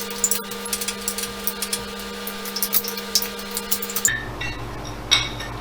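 Steady machine hum under rapid, irregular metallic clicking as bolts are worked loose on a milling machine's knee. About four seconds in, the hum stops abruptly, and a few metal clinks follow.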